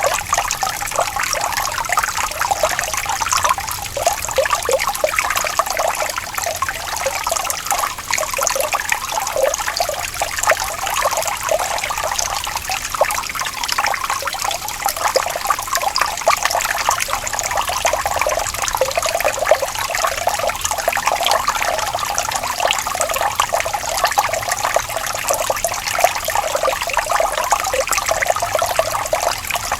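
Running water trickling and splashing in a steady, continuous flow.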